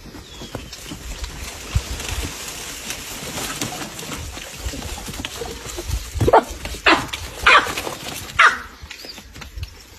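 Baboons give four loud, sharp barking calls in the second half, each about half a second to a second apart, over a steady outdoor background. These are typical alarm barks at predators below the tree.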